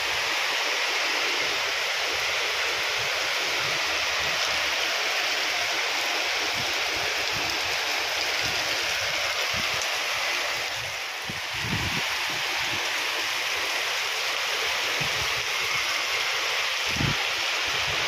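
Heavy tropical downpour during a typhoon: a steady rush of rain pouring down over the farm, with a few low rumbles of wind gusting against the microphone around the middle and near the end.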